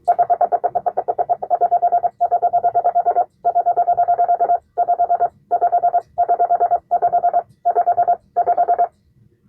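Morse sidetone beeping from a 1940 Vibroplex Blue Racer semi-automatic key (bug): strings of rapid, evenly spaced dits, about ten a second, in runs broken by short pauses. The dit speed is being set by the pendulum weight and extender.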